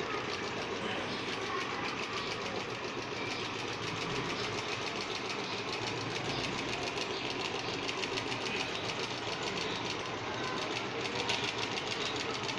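Sewing machine head driven by a small Stirling engine, running steadily with a fast, even mechanical clatter as it stitches through a paper wrapper.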